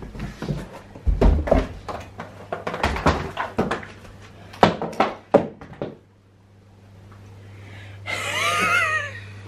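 A quick run of knocks and thuds from footsteps coming down a carpeted staircase and a cardboard shoe box being handled and opened, with tissue paper rustling. This gives way to a brief hush with a low hum, then a short wavering high-pitched squeal near the end.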